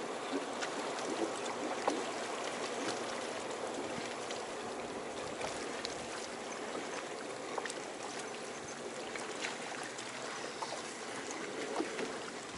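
Water lapping and trickling against the hull of a bass boat: a steady wash with small scattered ticks.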